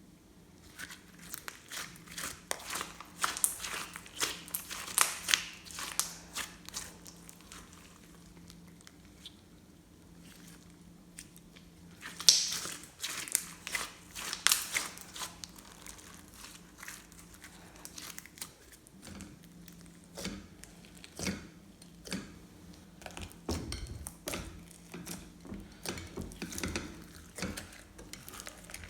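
Glossy slime being squished and kneaded by hand, giving irregular bursts of crackling, clicking squishes that come thick for a few seconds at a time and then thin out. A faint steady low hum sits underneath.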